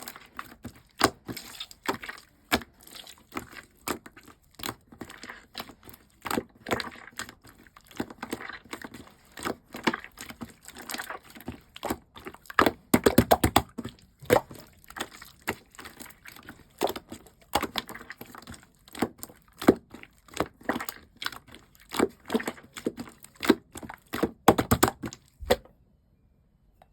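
Clear slime being squished and pressed by hand, giving a dense, irregular run of clicks and small pops that stops shortly before the end.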